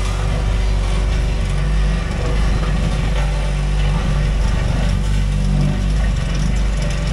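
Cat 289D3 compact track loader's diesel engine running steadily while working a vibratory roller, with a deep low rumble under the engine note.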